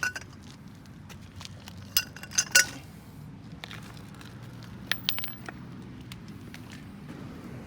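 Metal tools clinking together in a few sharp clinks: a cluster about two seconds in and a few more around five seconds, as the tools are swapped and handled.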